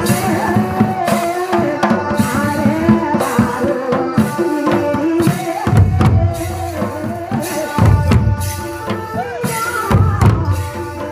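Live folk dance music: barrel hand drums beat a dense rhythm under a wavering melody line, with heavy low drum strokes about six, eight and ten seconds in.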